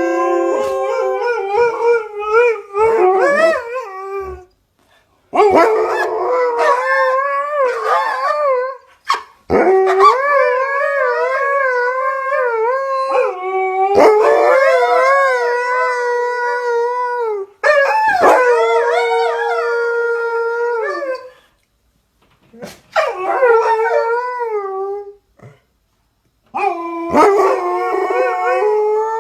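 A dog howling: a series of about seven long, wavering howls, each lasting two to four seconds, with short pauses between them.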